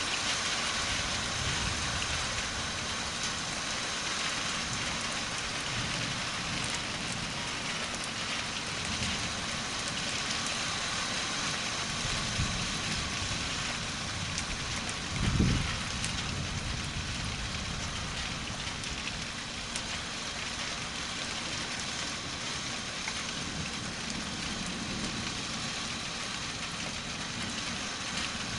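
Steady rain falling, with low rumbles swelling and fading underneath and one short, loud low thump about halfway through.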